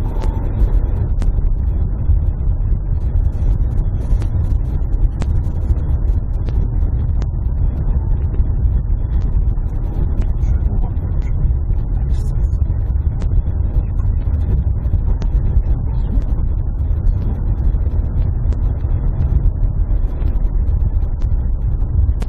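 Car driving, heard from inside the cabin: a steady low rumble of engine and tyre noise, with scattered light ticks.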